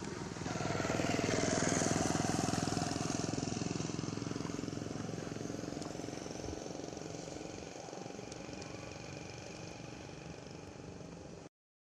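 A motor vehicle passing on the road: its engine grows louder about half a second in, its pitch falls as it goes by, and it slowly fades away. The sound cuts off suddenly near the end.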